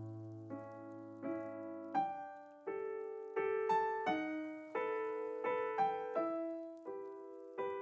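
Background piano music: a slow melody of single struck notes, each one fading before the next.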